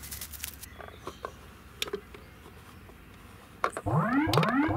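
A few faint clicks and taps. Near the end, an electronic music cue starts: a synthesizer plays repeated swooping tones that rise and fall about two to three times a second.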